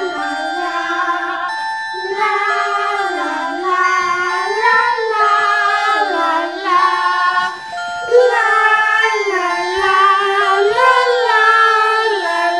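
Cartoon theme tune: a wordless voice sings a slow, gliding melody over held, tinkling keyboard or mallet-instrument notes.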